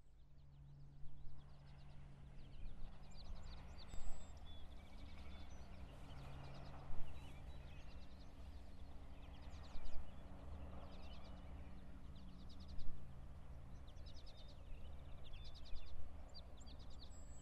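Birds chirping in short, repeated trills, a nature-sound bed over a steady low hum, with a louder accent about every three seconds.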